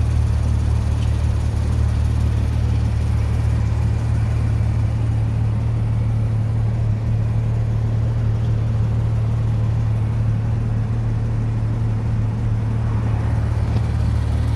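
Porsche 911 GT3 RS's naturally aspirated flat-six engine idling steadily.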